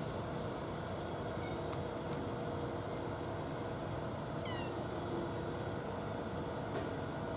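A domestic cat gives one short meow that falls in pitch, about halfway through, over a steady low rumble of distant traffic.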